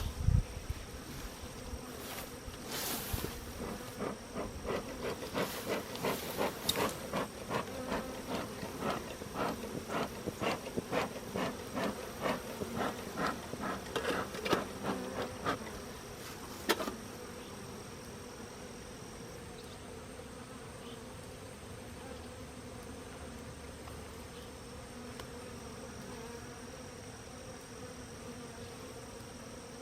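Honeybees from a knocked-over hive buzzing steadily, a low continuous hum. Through the first half a run of short clicks or scrapes, about two a second, stops after one sharper click.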